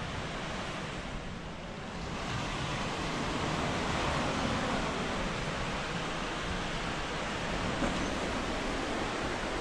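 Surf washing onto a sandy beach, a steady hiss that grows a little louder about two seconds in.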